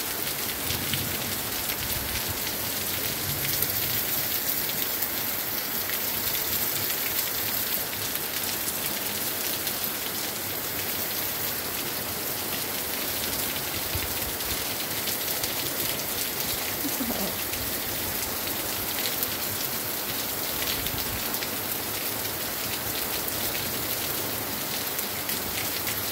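Steady rain falling on grass and open water: an even hiss, with single drops landing close by.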